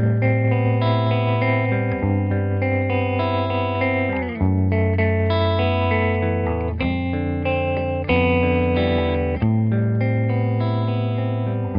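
Electric guitar chords played through an EarthQuaker Devices Hummingbird tremolo pedal, each chord chopped into a fast, choppy sawtooth 'repeat percussion' pulse. A new chord is struck about every one to two and a half seconds.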